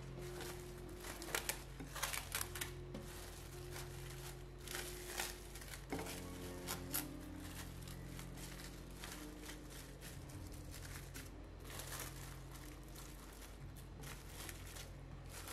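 Plastic cling film crinkling and rustling in irregular bursts as hands press it flat onto the surface of a soft cream, over soft background music. The crinkles are thickest in the first half.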